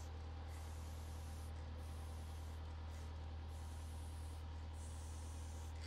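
Aerosol spray-paint can hissing in about four short bursts of roughly a second each as paint is sprayed onto a wall, over a steady low hum.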